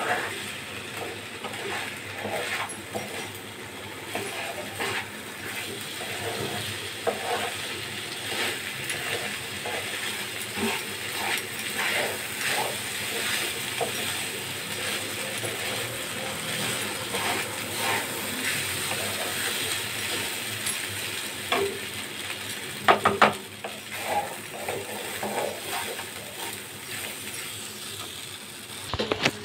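Metal spatula scraping and stirring soaked rice in a kadhai, a steady run of irregular scrapes and clicks as the rice is roasted in ghee. About three quarters of the way through come two sharp knocks.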